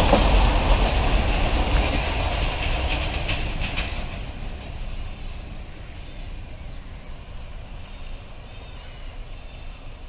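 Tail of a freight train of BCNHL covered wagons and its brake van rolling away. The rumble fades steadily over about six seconds, with a few sharp clacks around three seconds in, and leaves a faint low rumble.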